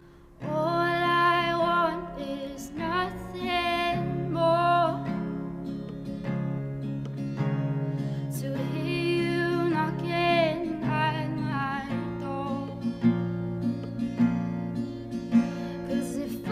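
Song with acoustic guitar and a singing voice, the music swelling in about half a second in.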